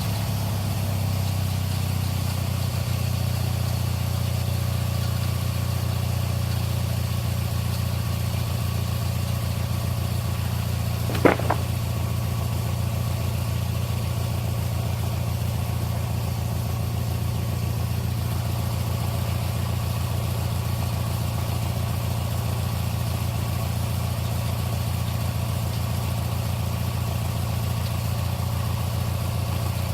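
Small lawn-mower engine, salvaged from an old Snapper mower, running steadily at an even speed as it powers a homemade sawmill. A brief sharp double knock is heard about eleven seconds in.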